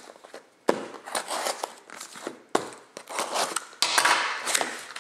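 A mail-order package being opened by hand: a few sharp clicks and knocks, then a stretch of crinkling packing material near the end.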